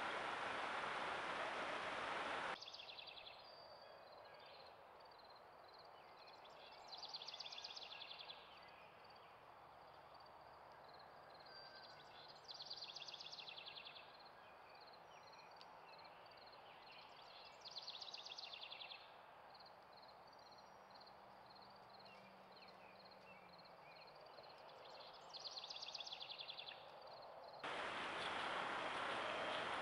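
Outdoor trail-camera audio. A steady hiss from the camera's microphone is cut off after about two seconds. It gives way to a quiet stretch where a run of evenly spaced high chirps goes on, and a short high trill comes four times, about five seconds apart. The hiss returns near the end.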